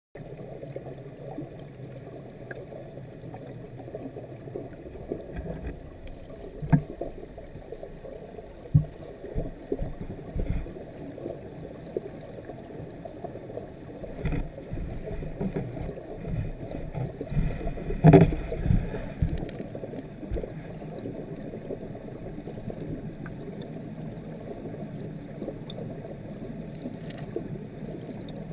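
Muffled rush and gurgle of stream water heard through a camera's underwater housing, with several sharp knocks, the loudest a little past halfway.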